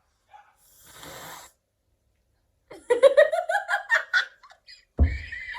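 A woman's breathy sniff about a second in, then a run of pulsing, rising laughter, and a sudden loud vocal burst just before the end.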